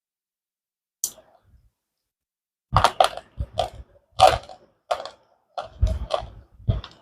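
Slate pencil being bitten and chewed: a single sharp snap about a second in, then an irregular run of loud, crisp crunches, about two a second, through the rest of the stretch.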